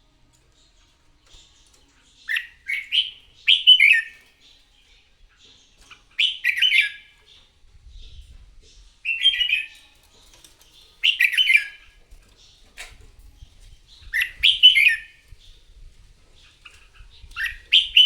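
Red-whiskered bulbul singing its competitive fighting song: short, bright whistled phrases repeated every two to three seconds.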